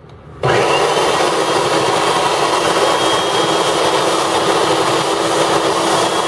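Food processor motor switched on about half a second in and running steadily with a steady high whine, its blade churning butter, sugar and egg yolk into cookie dough.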